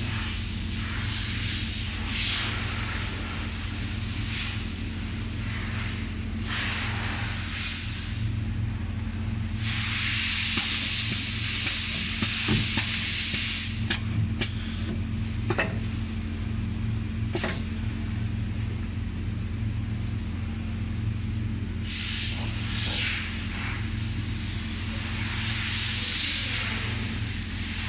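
Steady low hum of assembly machinery, with repeated bursts of high hissing, the longest lasting about four seconds, and a few sharp clicks in the middle.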